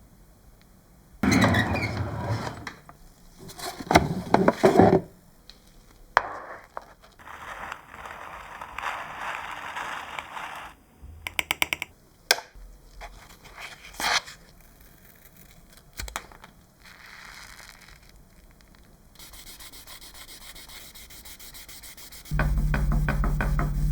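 Hand rubbing and sanding on a small scale-model part: irregular strokes and short bursts, with a quick run of clicks about halfway through.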